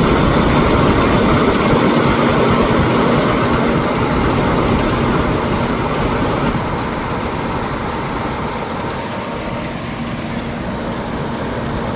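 A 2005 Nissan Pathfinder's 4.0-litre V6 idling steadily, with a steady hum. The sound eases a little about halfway through.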